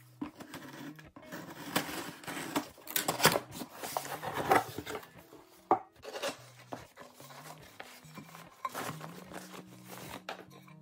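A cardboard shipping box being opened and handled: rustling, scraping and light knocks of cardboard flaps and packing, ending with a cloth bag lifted out. Soft background music plays underneath.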